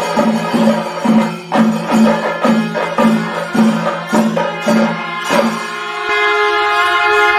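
Traditional percussion music: drums struck at a steady beat of about two to three strikes a second, giving way about six seconds in to one long held note from a wind instrument.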